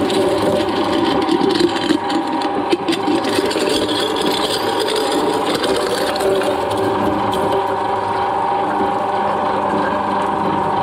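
Twin-shaft shredder running, its toothed cutters turning with a steady mechanical drone. A glass wine bottle rattles and knocks against the blades as they crack it, busiest over the first few seconds and settling to a steadier grind from about six seconds in.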